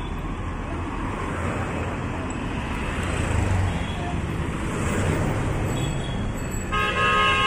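Street traffic with a bus passing close by: its engine and tyre noise swell and fade. Near the end a vehicle horn starts blowing, one long multi-tone blast that is the loudest sound.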